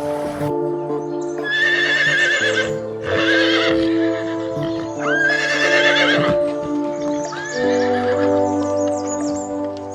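Four whinnies from an equine, each a quavering high call lasting about a second, over steady background music chords.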